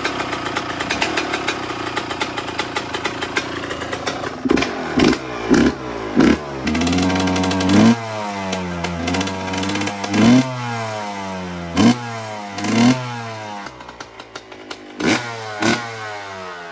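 Yamaha YZ125's single-cylinder two-stroke engine running just after starting, held at a steady fast idle for about four seconds, then blipped again and again, the revs rising and falling sharply with each blip over a lower idle.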